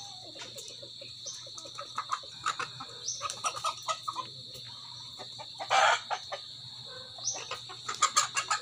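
Chickens clucking and squawking as they are grabbed by hand inside a wire-mesh cage, in short irregular bursts, with a loud flurry about six seconds in and another cluster near the end. A steady high-pitched drone runs underneath.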